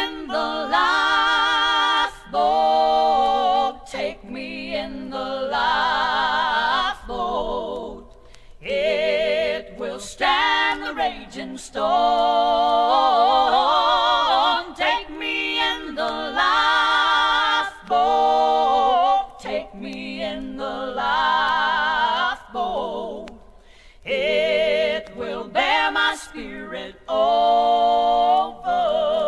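Gospel vocal group singing in harmony, men's and women's voices together, in sung phrases a few seconds long with short breaks between them; little or no instrumental accompaniment is heard under the voices.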